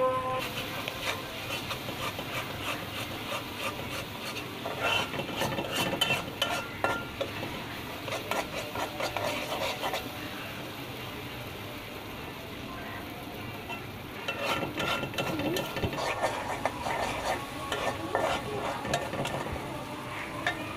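Spice paste sizzling in oil in a black iron kadai, with a metal spatula stirring and scraping against the pan. The scraping comes in two spells, from about four to seven seconds in and again from about fourteen seconds in.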